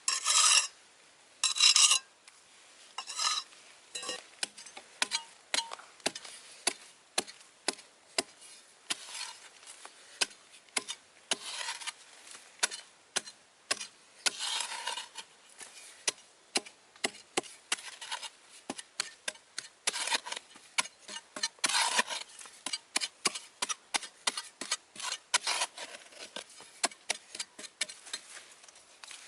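A hand tool scraping and clicking against hard material in quick, irregular strokes, with a few longer rasping strokes near the start, about halfway through and about two-thirds of the way through.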